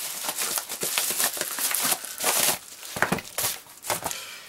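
Paper padded mailer envelope crinkling and rustling as it is handled and a box is pulled out of it, with a knock about three seconds in.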